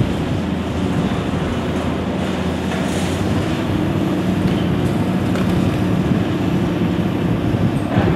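Diesel engines of demolition excavators running steadily with a low hum, a high-reach demolition excavator among them, and a few faint knocks of concrete being broken.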